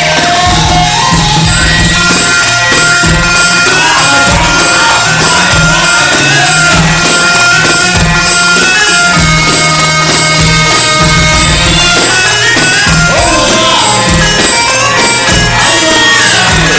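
Egyptian mahraganat song, loud, with a heavy electronic beat and a lead melody, played with an echo effect.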